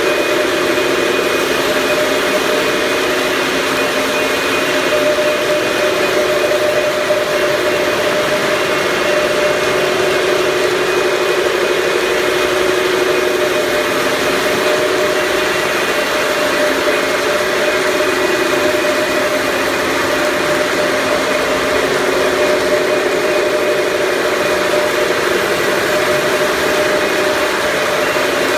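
Steady machine noise: an even hiss with several held tones that do not change.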